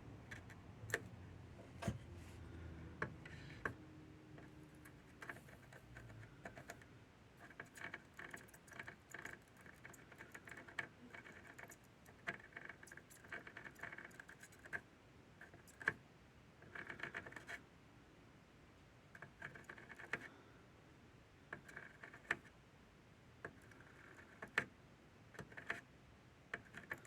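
Faint, irregular clicks and light scraping of small metal hand tools against a circuit board during hand soldering of a replacement HDMI port.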